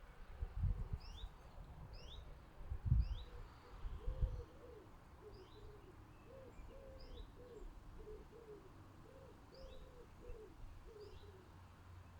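A pigeon cooing in a long run of low, repeated notes, while a small songbird gives short high chirps about once a second. Three low thumps come in the first half.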